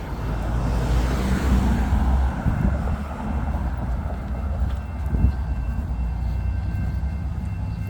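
Road traffic on a city street: a vehicle passes, swelling and fading about a second or two in, over a steady low rumble.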